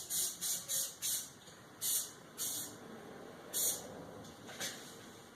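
Aerosol spray paint can spraying in a series of short bursts, about eight, each a quick hiss with brief pauses between, as parts are coated with high-gloss paint.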